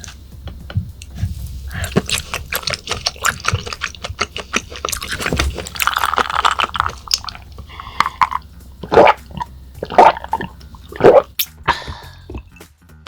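Close-miked chewing and wet mouth sounds of eating raw yellowtail sashimi: many small smacks and squishes, with a few louder sharp clicks in the second half.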